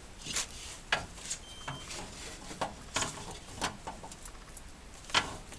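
Irregular sharp metallic clicks and taps of a hand wrench working the small nuts that hold an engine's radiator fan on, with a few louder knocks.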